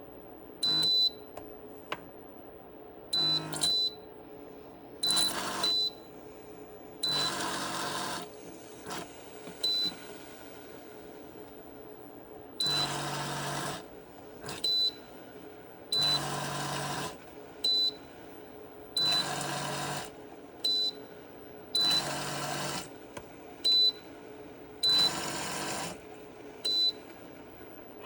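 Repeated short blasts of air hissing through a coffee maker's clogged water line to blow out scale and gunk, about ten bursts of a second or so each, a couple of seconds apart. Short high beeps sound between the blasts.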